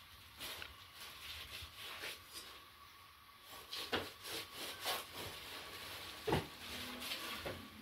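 A large butcher's knife cutting through a carcass's rib section on plastic sheeting: plastic rustling and scraping, with a few sharper knocks in the second half as the blade hits bone.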